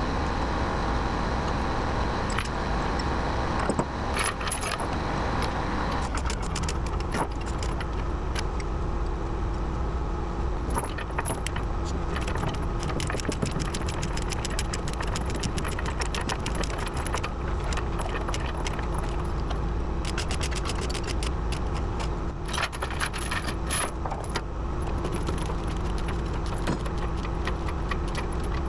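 An engine running steadily under dense metallic clinking and rattling. The rattling thickens about eleven seconds in and thins out after about twenty-four seconds.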